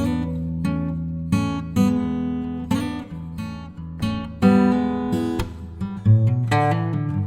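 Background music: plucked and strummed acoustic guitar, with a new note or chord every half second or so.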